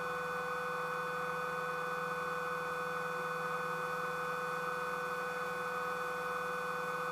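Steady hum with several fixed whine tones on the light aircraft's intercom and radio audio between transmissions. It starts and stops abruptly at the edges of the speech.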